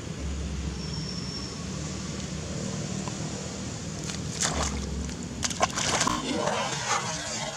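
Water splashing as a young macaque wades into a shallow pond: a few short sharp splashes from about halfway through, over a steady low hum.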